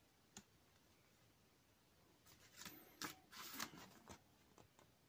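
Faint rustling of paper pages being turned by hand in a booklet: a small click about half a second in, then a run of soft page rustles from about two seconds in.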